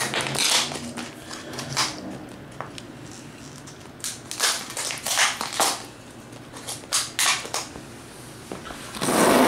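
Scissors and hands opening a product package: a string of short crinkles, rustles and snips, with a longer, louder rustle about nine seconds in.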